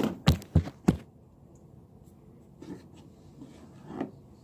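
Three quick sharp knocks in the first second, then faint handling noises, as of objects being picked up and set down on a table.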